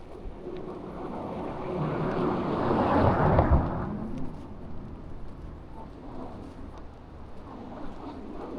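A road vehicle passing close by on the street, its sound swelling to a peak about three seconds in and then fading away.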